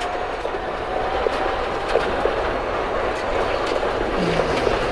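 Rally car at speed heard from inside the cabin: the engine running hard over loud, steady tyre and road noise, with scattered sharp ticks. About four seconds in, the engine pitch drops briefly.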